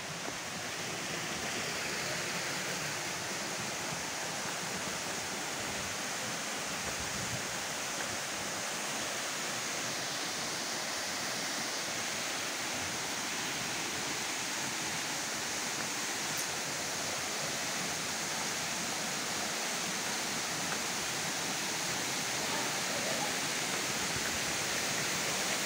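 Bayad waterfall's steady rushing water, a continuous even roar of falling water and its stream that grows gradually louder.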